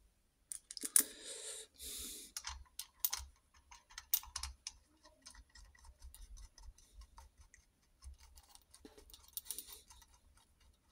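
Small steel washers and nuts being fitted by hand onto the cam plate and quadrant studs of a Norton Commando gearbox casing: light, irregular metallic clicks and taps as the parts are handled, seated and run down the threads, with a few brief rustles in the first couple of seconds.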